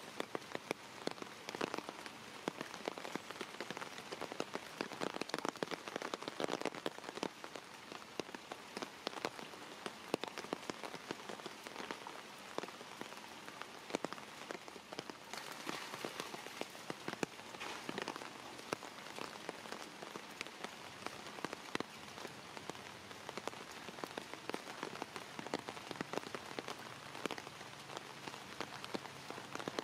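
Steady rain falling on shallow standing water and wet stone paving, a dense even hiss dotted with many separate sharp drop ticks.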